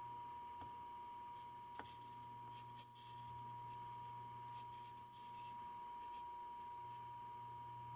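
Steady pure test tone from a 1960s General Electric C-510a tube AM/FM clock radio, receiving a tone-modulated test signal while its IF transformer cores are peaked for alignment. A faint low hum runs underneath, with a few small clicks and scrapes from the plastic alignment tool turning in the transformer slug.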